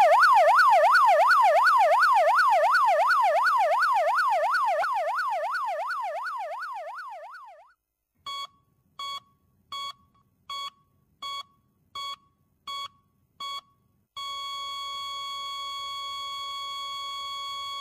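Electronic warbling siren sound effect, rising and falling about three times a second and fading away over about seven seconds. It is followed by eight short, evenly spaced beeps and then a steady beep tone held for the last few seconds.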